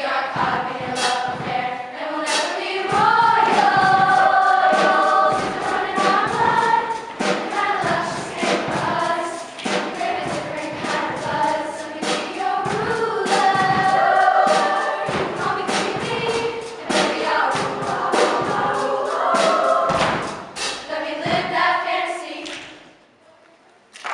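A choir singing in parts, with sharp clicks or claps sounding throughout as percussion, dying away about a second before the end.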